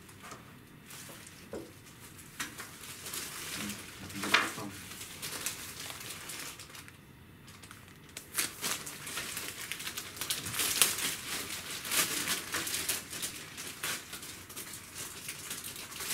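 Clear plastic packaging crinkling and rustling as a laptop and its wrapped parts are handled out of the box, busiest in the second half, with one sharper knock about four seconds in.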